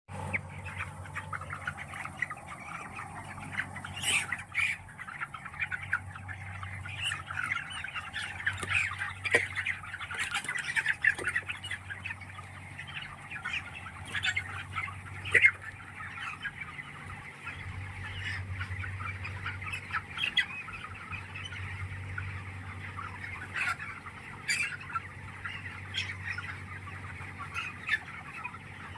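A large flock of chickens in a poultry house, many birds clucking and squawking at once with now and then a sharper, louder call, over a steady low hum.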